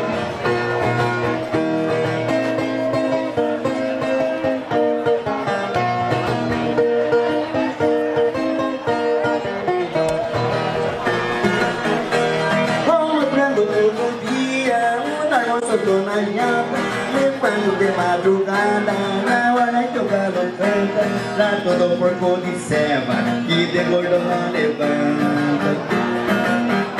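Music: a plucked acoustic guitar with a singing voice, in a country style.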